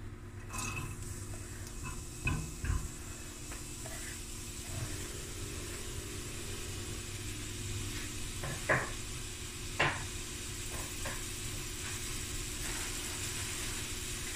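Diced carrot, onion, garlic and jalapeño frying in hot olive oil in a stainless steel pot: a steady sizzle that starts as the vegetables go in. A few sharp knocks sound over it, the two loudest about two-thirds of the way through.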